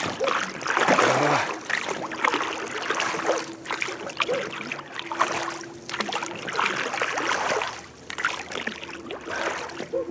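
Wooden oars of a small rowboat pulling through the water, with a swish of water on each stroke every two to three seconds. The boat is rowed hard while towing a set gill net, and it is making little headway.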